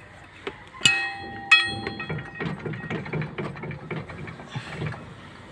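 A bell-like metallic ring sounds twice, about two-thirds of a second apart, followed by a few seconds of light irregular clattering and knocking.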